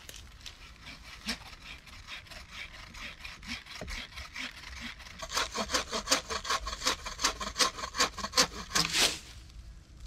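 Wooden frame saw cutting through a fallen tree trunk, a rapid back-and-forth rasp of about four strokes a second. The strokes are faint at first, grow much louder about halfway through, and stop shortly before the end.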